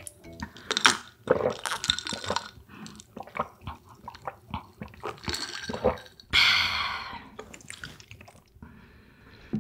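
Green tea being drunk from a glass tumbler, close to the microphone: a run of sips and gulping swallows with small wet clicks. About six seconds in comes a louder breathy exhale lasting about a second.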